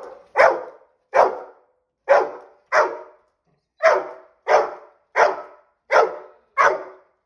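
A dog barking repeatedly: about nine sharp barks, roughly one every two-thirds of a second, with a short break about halfway through.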